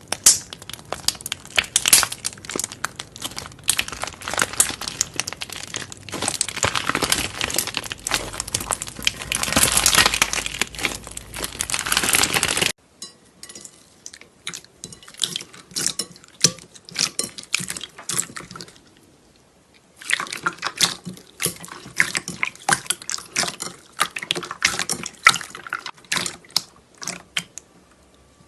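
Slime being worked by hand, with dense wet, sticky clicking and crackling. A little before halfway it changes abruptly to sparser pops, then after a short lull it thickens again.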